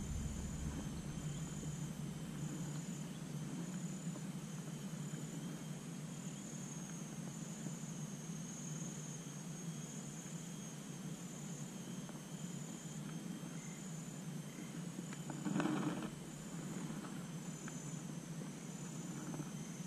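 Insects calling, a high chirp repeating in even pulses over a steady faint drone. A brief rustle comes about fifteen seconds in.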